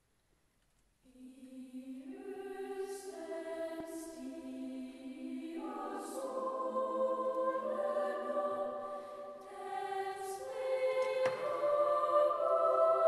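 Female upper-voice choir singing sustained chords in harmony. The voices come in about a second in and grow gradually louder.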